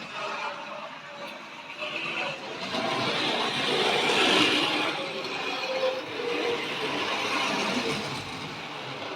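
Model trains running on the layout, wheels rolling on the rails and small electric motors whirring, swelling louder as a train passes close about four seconds in.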